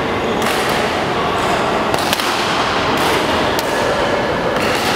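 A badminton racket striking a shuttlecock, a few sharp hits, over the steady background noise of a large indoor sports hall.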